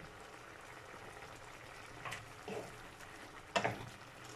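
Coconut-milk sauce with salmon simmering in a pot, a steady soft bubbling, with a few short knocks in the second half.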